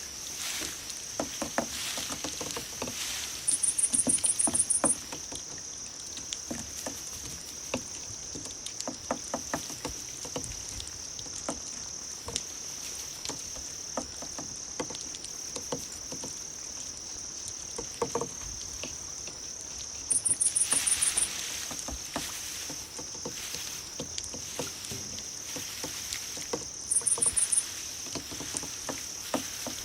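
Crickets chirping: a steady high trill throughout, with a louder, rapidly pulsed chirp three times, once early and twice in the last third, over scattered light clicks.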